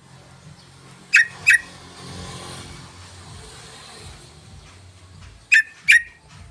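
Yellow-vented bulbul giving short, sharp calls in two pairs, each note sweeping quickly downward, over a steady low background rumble.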